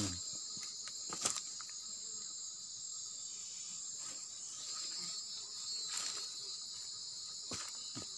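Steady high-pitched chorus of night insects, with a few faint clicks.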